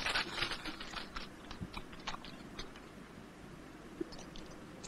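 Faint, irregular clicks and ticks over low hiss, many in the first second, then only a few scattered ones.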